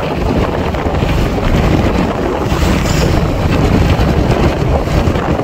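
Wind buffeting the microphone on a moving motorcycle, a loud steady rumble, with the motorcycle running underneath it.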